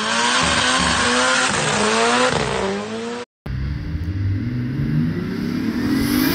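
Car engine revving, its pitch rising and falling for about three seconds. After an abrupt cut, the engine pulls again with its pitch climbing steadily as the car accelerates.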